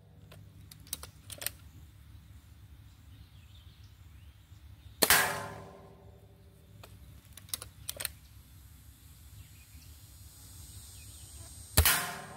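Two shots from a Gamo Swarm Whisper .22 air rifle, one about five seconds in and one near the end, each a sharp crack with a ringing tail as the pellet hits the steel targets. Between the shots come a few light clicks.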